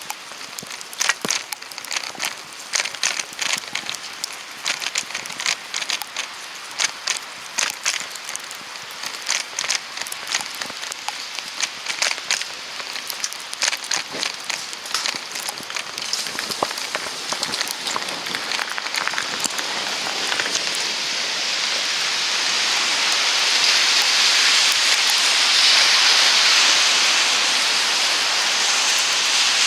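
Dense, irregular crackling patter of wet falling snow striking a surface close by. From about two-thirds of the way in, a steady hiss swells up and takes over.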